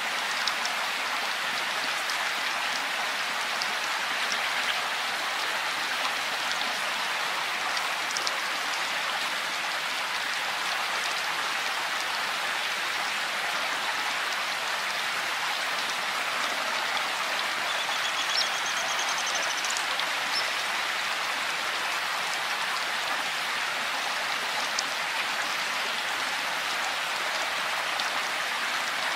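Steady rain falling in woodland, an even hiss with scattered individual drops ticking close by.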